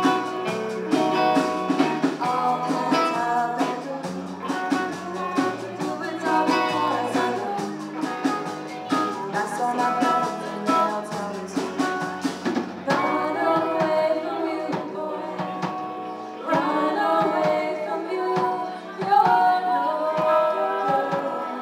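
Live rock band playing: a woman sings lead into a microphone over electric guitar and drum kit.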